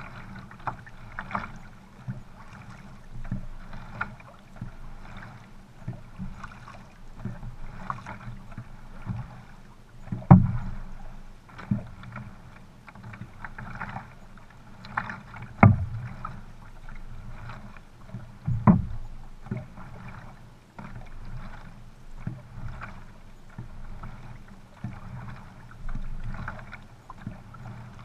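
Sprint canoe paddling on flat water: paddle strokes splash and pull through the water in a steady rhythm, a stroke every second or so, over water rushing along the hull. Three louder splashes or knocks stand out, the first about ten seconds in.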